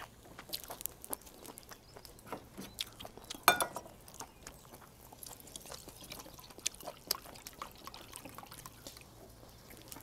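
Makgeolli being poured from a plastic bottle into a small metal bowl, with liquid splashing and trickling and the light clicks and knocks of the bottle being handled. A short, sharp sound about three and a half seconds in is the loudest moment.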